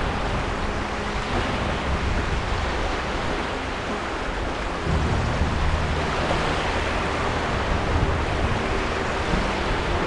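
Steady rush of surf, waves washing on a shore, swelling slightly about halfway through.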